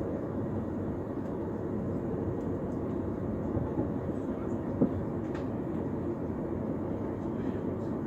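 Steady rumble of a passenger train running along the track, heard from inside the carriage, with one sharp knock about five seconds in.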